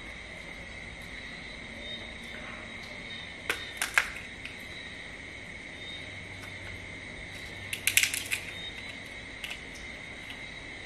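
Crab shell cracking as it is broken apart by hand: a few sharp cracks about four seconds in and a quick cluster of snaps around eight seconds. A steady high-pitched hum runs underneath.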